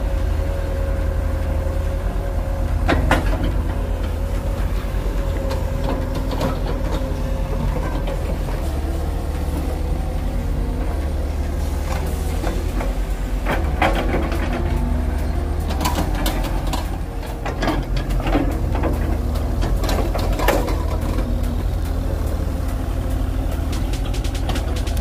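Two mini excavators' diesel engines running steadily while they dig, with a few sharp clanks from the buckets and arms working the mud.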